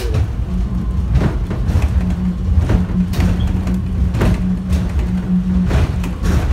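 Airport subway train running, heard from inside the car: a steady low rumble under a hum that wavers in and out, with a short thump from the running gear about every one and a half seconds.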